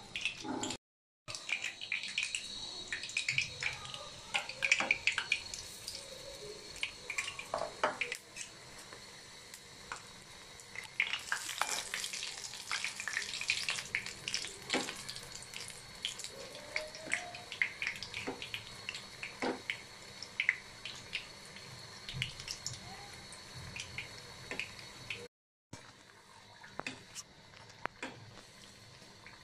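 Battered rolls sizzling as they deep-fry in hot oil in a metal karahi, with frequent light clicks and scrapes of a metal slotted spoon against the pan as they are turned. The sound drops out completely twice, briefly: about a second in and near the end.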